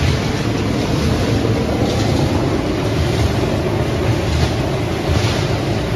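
Refrigerator crushing and sorting line machinery running with a loud, steady rumble and hiss, as crushed refrigerator material pours from a discharge chute into a sack.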